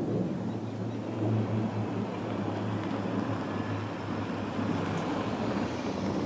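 Airbus A400M's four Europrop TP400 turboprop engines and propellers droning steadily as the transport climbs away: a low rumble with a steady hum underneath.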